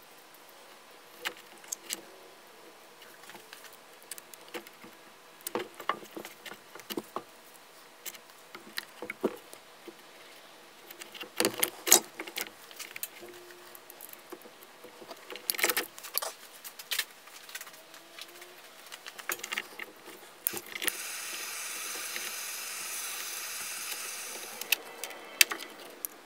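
Scattered metallic clicks and clinks of a hand cable crimper and heavy-gauge copper ring terminals being handled. Near the end a steady hiss runs for about four seconds.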